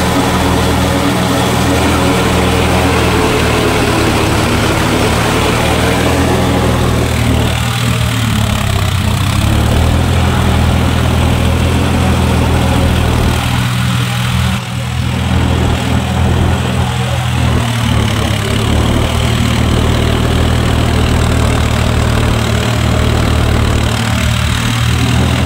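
John Deere 5045D tractor's three-cylinder diesel engine running steadily, heard from the driver's seat while it drives a rotary tiller through flooded paddy mud.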